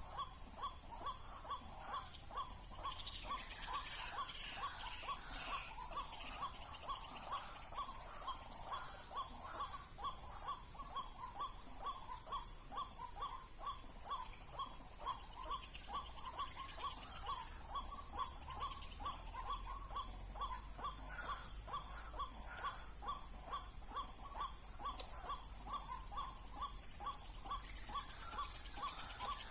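White-breasted waterhen calls: a short note repeated evenly about twice a second without a break, over a steady high insect drone, with other birds twittering now and then.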